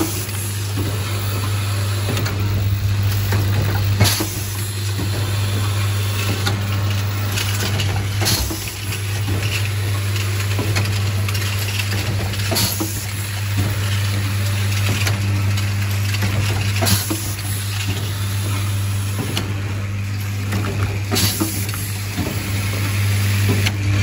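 Automatic screw-assembly machine for plastic corner connectors (model YX-CS35) running: a steady low hum under irregular clicks, clacks and short hisses from its pneumatic actuators and screwdriving heads, a few seconds apart.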